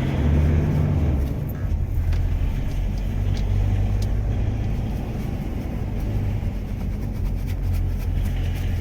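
Vehicle engine and road noise heard from inside a moving car: a steady low drone.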